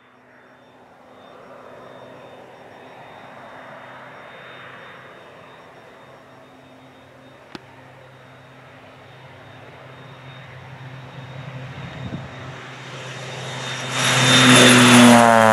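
Air Tractor 402B crop duster's Pratt & Whitney PT6A turboprop flying in low: a propeller drone with a thin high turbine whine, growing louder as it approaches. It passes close by with a loud rush near the end, and its pitch starts to drop as it goes past.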